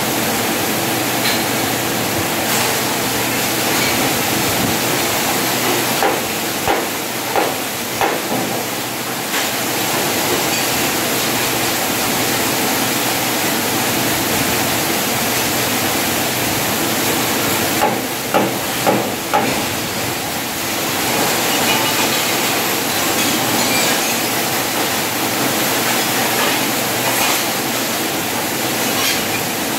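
Electric arc welding on a steel gate frame: a steady hiss, broken by a few sharp knocks about six to eight seconds in and again around eighteen to nineteen seconds in.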